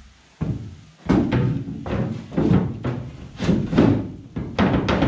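A plywood floor panel knocking and thudding against the aluminium frame of a boat hull as it is worked down into place for a test fit, with a quick string of irregular knocks.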